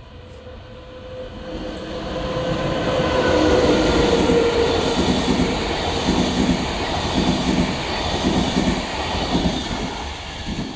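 An electric-hauled passenger train passing through a station. It grows louder as the locomotive comes by a few seconds in, then the coaches' wheels clack over the rail joints in a regular rhythm, about one clack every 0.8 s, easing off near the end.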